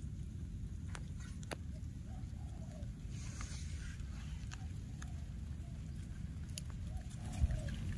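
Outdoor ambience: a steady low rumble with a few faint sharp clicks and several soft, short calls.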